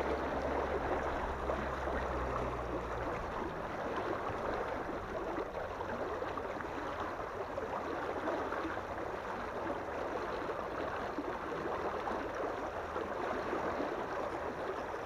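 Steady rush of churning river water flowing out past a floodgate.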